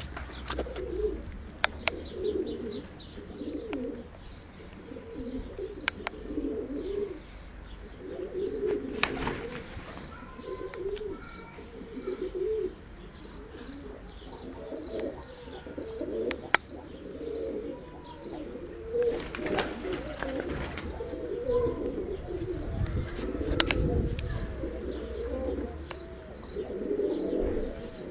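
Many pigeons cooing over one another without a break, with short high chirps repeating above them and a few sharp clicks.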